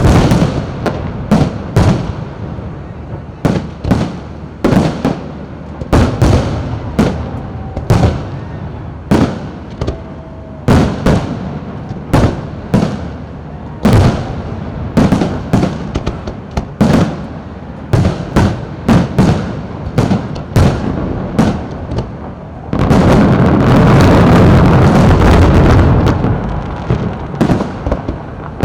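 Fireworks display: a steady run of loud firework bangs and booms, about one or two a second, each trailing off in a rumble. About three-quarters of the way through, a few seconds of dense, unbroken crackling noise.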